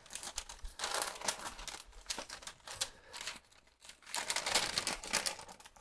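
Brown masking paper crinkling and rustling as it is flipped up and pressed by hand onto a cabinet face frame, in irregular bursts with a short pause a little past halfway.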